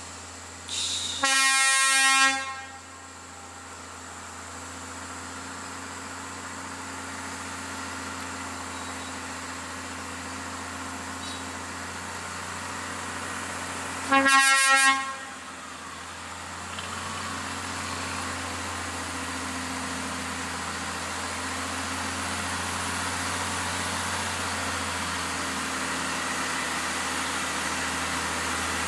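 A truck's air horn sounds twice with one steady tone, about a second each time: once about a second in and again about fourteen seconds in. Between the blasts a heavy truck engine labours up the grade, slowly growing louder toward the end.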